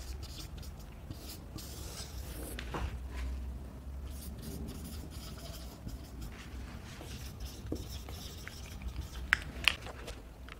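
Marker pen writing on a whiteboard in short strokes with a few light taps, over a faint steady low hum.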